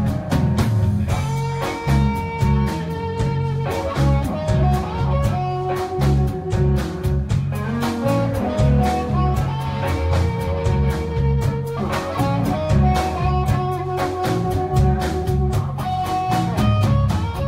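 A live blues band playing an instrumental passage: a harmonica plays long held notes over a bass line, drums and guitar.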